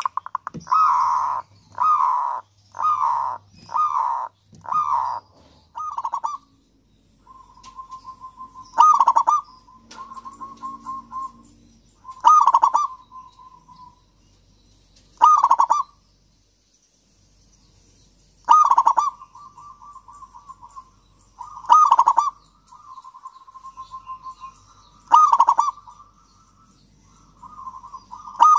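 Zebra dove (perkutut) cooing: first a run of about six separate coos, roughly one a second, then repeated phrases of soft rapid stuttering notes, each ending in a louder coo, about every three seconds.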